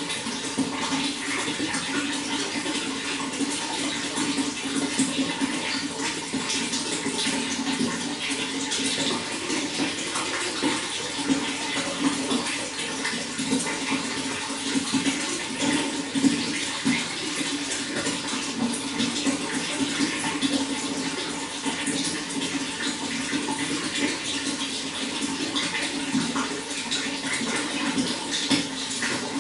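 Running water in a steady, continuous flow with fine splashing throughout.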